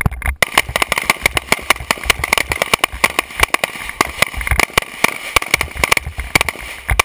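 A firing line of carbines shooting at once: dense, overlapping rifle shots, several a second, loud and without a break.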